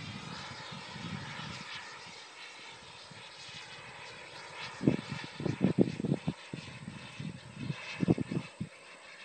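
Distant whine of a radio-controlled model jet's turbine engine flying high overhead, steady and faint. From about five seconds in it is broken by irregular low buffeting bursts on the microphone.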